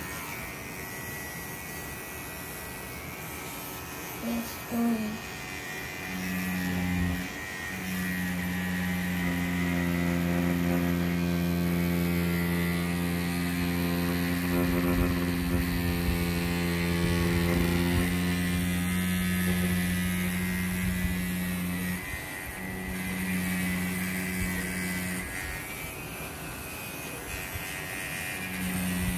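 Pen-style tattoo machine buzzing with a steady low hum as its needle traces lines on practice skin. It starts a few seconds in, cuts out briefly twice in the second half, and starts again near the end.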